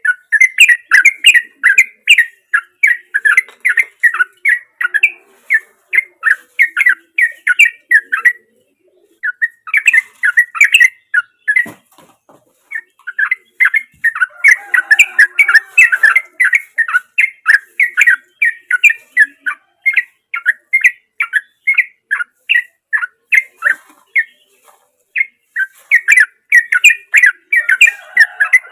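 Yellow-vented bulbul (trucukan) singing long runs of rapid, evenly repeated chirps, about three a second, with a few short pauses.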